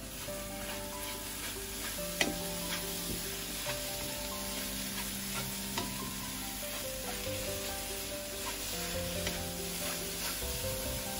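Scrambled eggs with spinach and tomato sizzling in a frying pan while a wooden spatula stirs and scrapes through them, with scattered sharp taps of the spatula against the pan.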